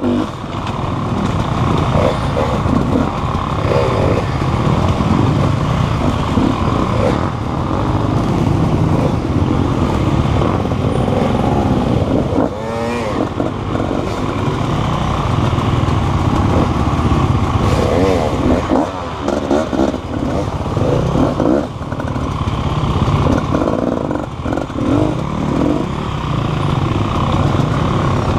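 Motor vehicle engine, likely a motorcycle, running throughout, its pitch rising and falling with the throttle.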